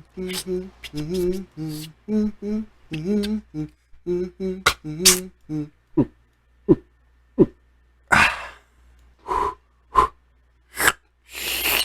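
A man making sound effects with his mouth: a short hummed tune in clipped notes, then three quick low mouth pops and several short hissing, breathy bursts.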